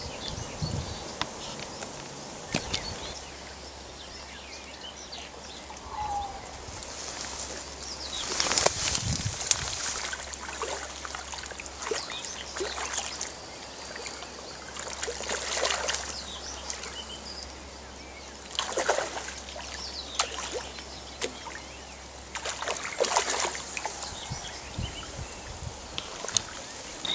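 Shallow river water splashing and sloshing in several separate bursts as a hooked brown trout thrashes and is drawn into a landing net by a wading angler, over the steady trickle of the stream.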